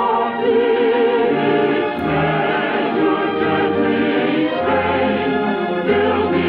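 Orchestra and choir performing operetta music, the voices held with vibrato. The recording has a dull top end, typical of an early-1950s radio transcription.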